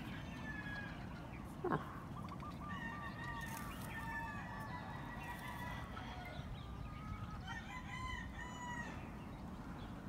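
Chickens clucking in a run of repeated notes, with a rooster crowing near the end. A short, loud rising call cuts in about two seconds in.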